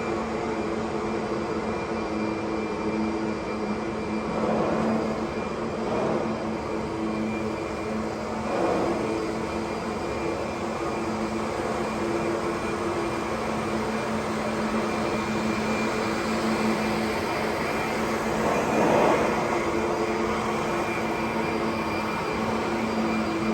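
Kirby Sentria 2 upright vacuum cleaner running, a steady motor hum with an airy rush, swelling louder briefly a few times.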